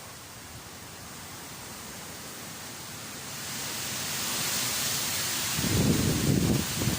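Strong typhoon wind with rain, a steady rushing noise that swells into a stronger gust about halfway through, with a low rumble near the end as the wind buffets the microphone.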